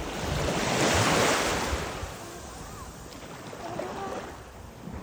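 Sea surf: a wave breaking and washing in, the rush swelling to its loudest about a second in and then easing off to a steady wash.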